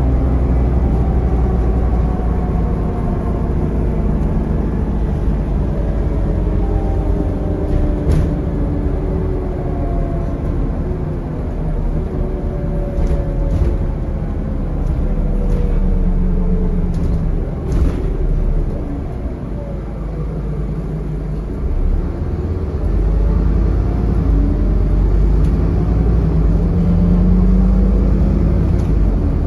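Scania N230UD double-decker bus's five-cylinder diesel engine and drivetrain, heard from inside the passenger saloon as a steady low drone. Its pitch falls as the bus slows, eases off for a few seconds, then climbs again as it pulls away. A few sharp rattles or knocks sound from the bodywork.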